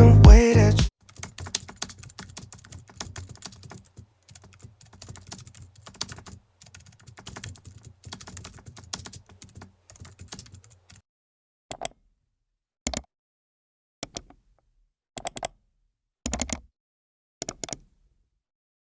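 Typing on a computer keyboard: a quick, quiet run of key clicks for about ten seconds. Then come several separate short clicks in small clusters, about one a second. Music cuts off about a second in.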